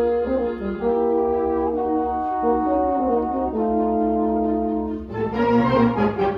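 Concert band playing slow, held brass chords, with French horns prominent. About five seconds in, more of the band joins, and the sound turns fuller and brighter.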